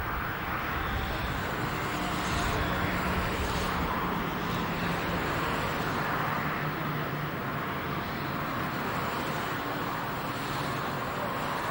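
Steady rushing noise of road traffic, with a faint low engine hum underneath.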